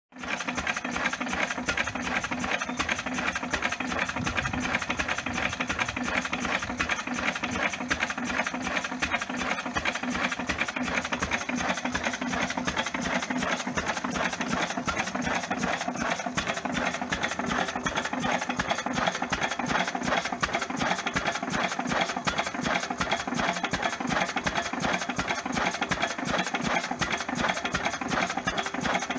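Vintage single-cylinder stationary engine running steadily, an even, rapid mechanical beat that does not pause.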